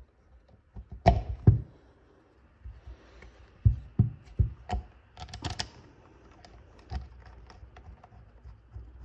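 Irregular clicks, taps and knocks of small metal parts being handled while bolts are started by hand in a BMW VANOS unit's cap, with a cluster of louder knocks about a second in and more between about four and six seconds.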